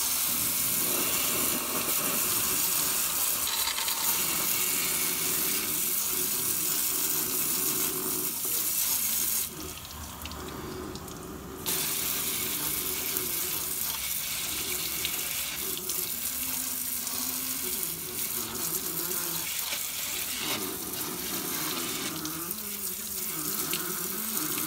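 Handheld gas torch flame hissing steadily while heating a seized driveshaft to free it. The hiss drops away for about two seconds near the middle, then comes back.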